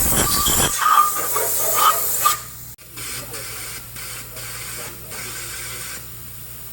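High-pressure spray hissing against an engine block as it is cleaned. It cuts off about two and a half seconds in, leaving a quieter low steady hum.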